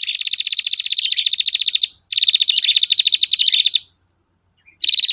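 Female prinia (prenjak) giving its long 'tir' trill: a fast, even rattle of high chips, about fifteen a second. Two trills of about two seconds each run with a brief break between them, and after a pause of about a second a third begins near the end.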